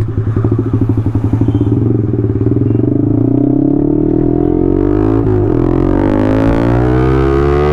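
Yamaha R15 V3's 155 cc single-cylinder engine running through a free-flow SC Project slip-on muffler without its dB killer, as the bike pulls away. The exhaust beat starts as a low pulsing and rises in pitch, dips at a gear change about five seconds in, then climbs again.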